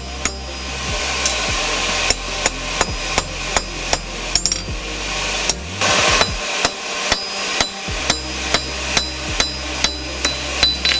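Blacksmith's hand hammer striking hot steel on an anvil in a steady rhythm of about three blows a second, each blow with a short metallic ring. A steady low hum runs underneath and drops out for about two seconds in the middle.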